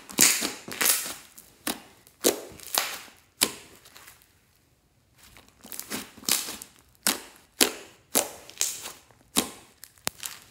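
Glossy slime with small beads being squeezed and pressed between hands, making a string of sharp, wet crackling squelches, each one starting suddenly and fading quickly. There is a short lull about a third of the way in.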